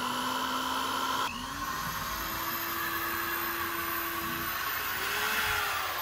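Corded electric drill running as it bores holes into a wooden roof beam, its motor pitch shifting a few times.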